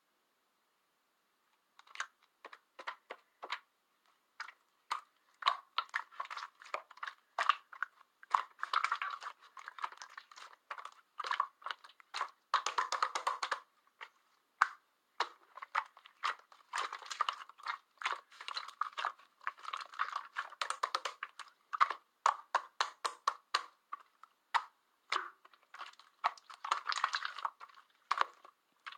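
Slime being squeezed and pressed by hand: a rapid, irregular crackle of sticky clicks and air-bubble pops, coming in denser stretches, starting about two seconds in.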